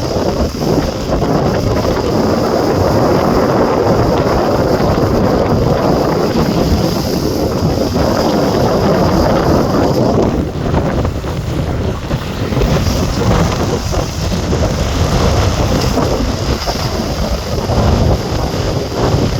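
Strong wind buffeting the microphone in a steady, loud rush, mixed with water rushing and splashing beneath a wingfoil board.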